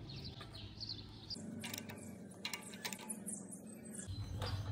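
A series of sharp clicks and taps from hand tools and metal engine parts being handled, with birds chirping faintly.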